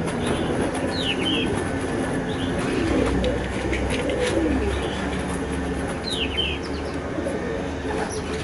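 Pigeons cooing in wavering low calls, with a small bird giving a short high chirp about a second in and again about six seconds in.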